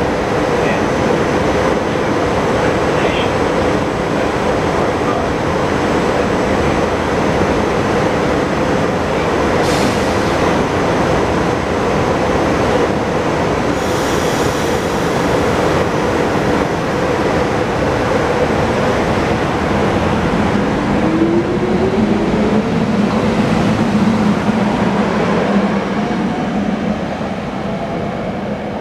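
SEPTA GE Silverliner IV electric multiple-unit train running loudly and steadily at the platform, then pulling away. About two-thirds of the way through, a rising whine from the motors as it gets under way, and the sound fades near the end as the train leaves.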